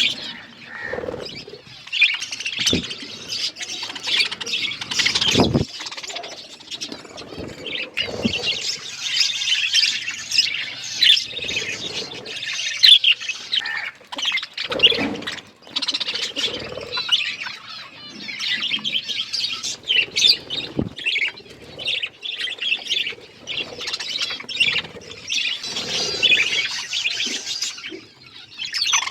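A flock of budgerigars chattering and chirping continuously, with a few short low thumps among the calls.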